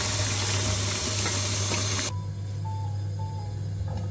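Kitchen tap water running and splashing onto freshly boiled pasta as it drains in a plastic colander in the sink. The water cuts off abruptly about two seconds in, leaving a steady low hum.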